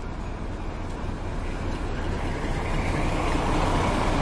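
Krupp diesel-hydraulic locomotive BB30402 running past close by, its engine rumbling and wheels rolling on the rails, growing steadily louder as it comes alongside.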